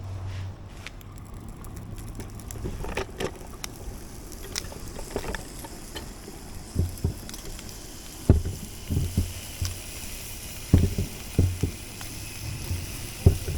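Irregular knocks and clicks over a steady low hum, the knocks coming heavier and more often in the second half.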